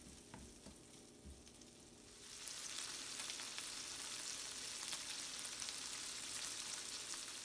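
Fiddleheads sautéing in melted butter in a skillet: a spatula stirring with a few soft knocks, then from about two seconds in a louder, steady sizzle with scattered crackling pops.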